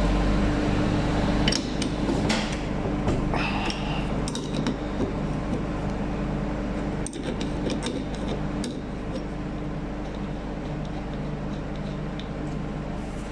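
Scattered metallic clicks and clinks, like hand tools and small parts being handled, over a steady low mechanical hum. The clinks cluster in the first nine seconds and then stop, leaving the hum.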